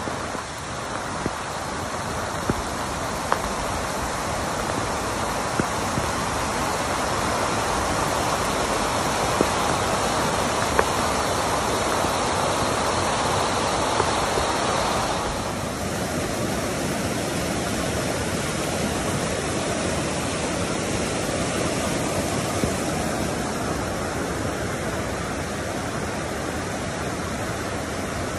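Fast brown floodwater rushing and churning through a swollen creek, a steady loud wash of water that changes in tone about halfway through.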